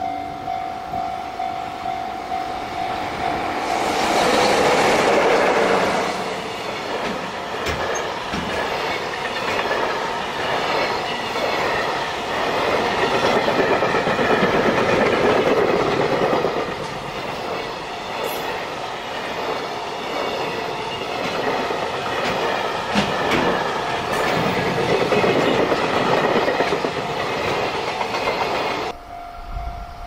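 JR Freight EF66 electric locomotive passing at speed, followed by a long train of container wagons rumbling and clattering over the rail joints. The sound swells as the locomotive goes by about four seconds in and cuts off suddenly near the end.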